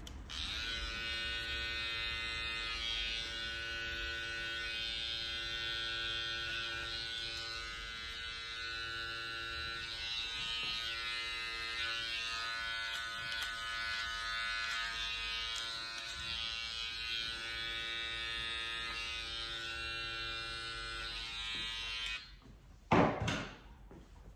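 Small electric detailing clipper buzzing steadily while trimming hair at the nape, then switching off near the end. A short, loud knock follows about a second later.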